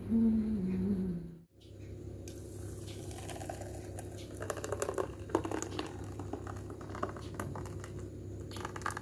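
Ladle stirring thick oats and moong dal batter in a bowl: soft wet squishing with many small clicks and scrapes against the bowl, busiest in the middle. A steady low hum runs underneath.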